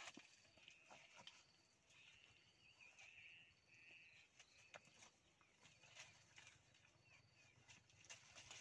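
Near silence: faint scattered crackles of dry leaves on the ground, with a few faint high warbling chirps between about two and four and a half seconds in.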